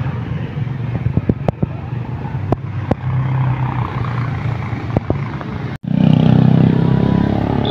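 Motorcycle engines running on a street: a steady low drone with scattered sharp clicks. After a brief cut-out about six seconds in, the engine sound comes back louder.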